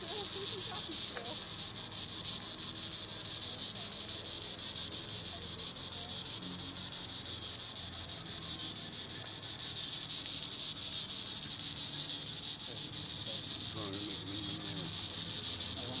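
Green annual cicadas (Tibicen linnei) buzzing in a steady high-pitched drone that swells a little about ten seconds in.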